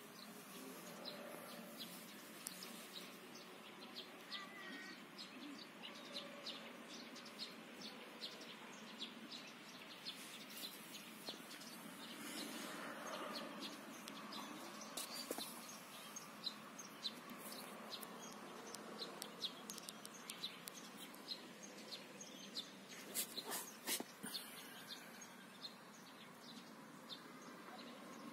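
Faint birds chirping in the background, many short rapid chirps, with a few louder sharp clicks about three-quarters of the way through.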